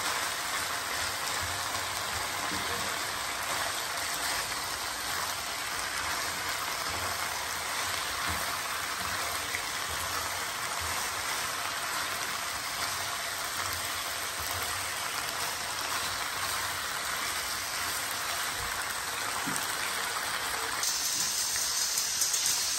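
Keema and pasta shells sizzling in a frying pan as they are stirred with a wooden spatula, a steady crackling hiss. Near the end the sizzle turns louder and higher.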